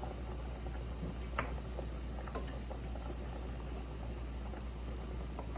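Food simmering in a pot on the stove: a steady bubbling hiss with scattered small pops and ticks, over a steady low hum.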